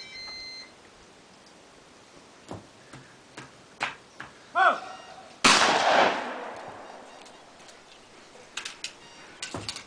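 A single black-powder shotgun shot about halfway through: one heavy blast with a long reverberating decay. About a second before it comes a sharp, shorter crack, and a brief beep sounds at the very start.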